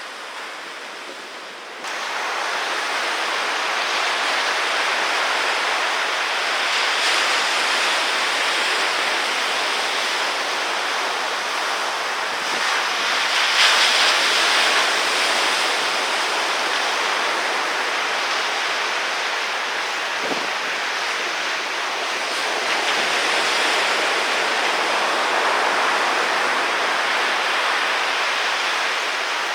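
Ocean surf with wind buffeting the microphone: a steady rushing that steps up sharply in loudness about two seconds in and swells briefly near the middle.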